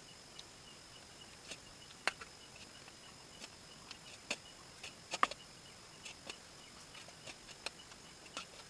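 Close-up eating sounds from a mouthful of instant noodles: irregular sharp clicks and smacks, loudest about two and five seconds in. Crickets chirp steadily in the background.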